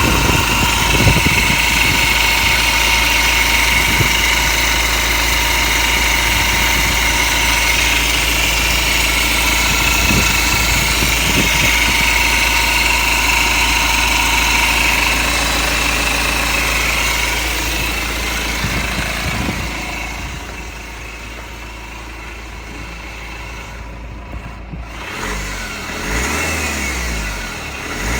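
BMW N47 2.0 litre four-cylinder turbodiesel running, with a steady high-pitched whine over the engine sound which the owner suspects may be timing chain noise. The sound gets clearly quieter about two-thirds of the way through.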